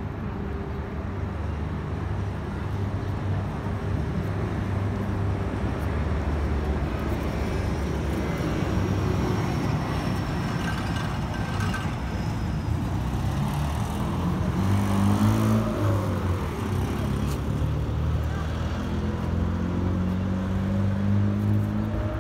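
Low, steady engine rumble of motor traffic, with the engine note rising around the middle and again near the end.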